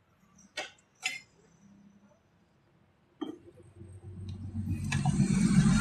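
Two sharp clicks about half a second apart and another about three seconds in, then a rushing noise that swells up over the last two seconds.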